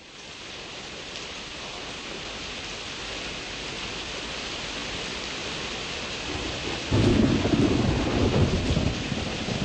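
Steady rain falling, fading in at the start. About seven seconds in, a loud low rumble of thunder starts suddenly and carries on under the rain.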